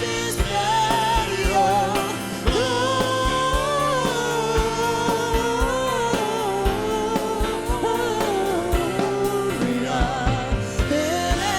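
Worship band playing with a steady beat while singing holds long, wavering notes: a Christmas hymn being sung.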